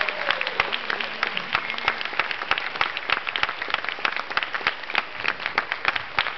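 An audience applauding: a dense, steady patter of many hands clapping.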